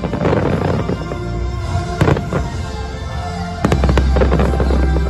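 Aerial fireworks bursting, with sharp bangs near the start, about two seconds in and around three and a half seconds in, and crackling after the first burst. Music with held notes and a deep bass plays underneath.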